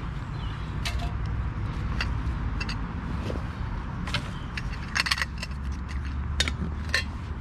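Light clicks and clatter of camping gear being handled: items taken out of a backpack and a metal fuel bottle picked up and set down, a dozen or so small knocks, over a steady low rumble.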